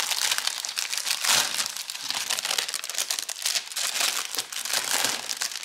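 Thin clear plastic packaging crinkling and crackling continuously as a rolled canvas is pulled out of it and the bag splits open.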